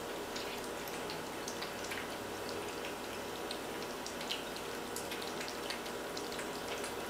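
Two Siamese kittens eating raw food from bowls: quiet, irregular wet smacking and chewing clicks over a steady hiss.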